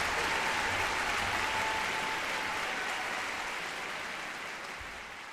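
Concert-hall audience applauding steadily, slowly growing quieter.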